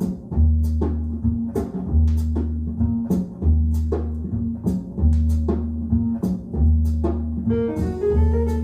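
Jazz recording played over hi-fi loudspeakers: upright bass and drums repeat a short figure about every one and a half seconds, and a guitar or piano melody comes in near the end.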